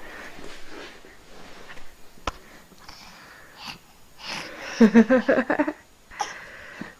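Wheezy, breathy huffing, with a sharp click a little after two seconds and a loud run of quick pitched wheezes about five seconds in.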